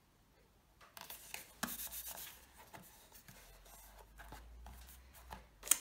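Designer paper rustling and rubbing against a cardboard box as it is pressed on and smoothed round the corners, starting about a second in, with a few light taps and a sharper tick near the end.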